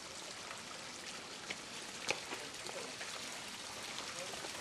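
Canal water running and trickling, a steady even hiss, with two sharp clicks about a second and a half and two seconds in.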